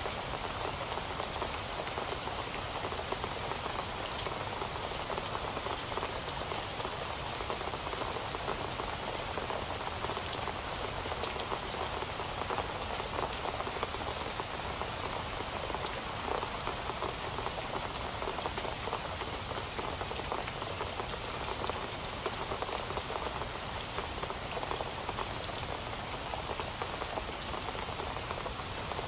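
Steady rain falling on a surface, a dense even patter of drops without thunder or letup.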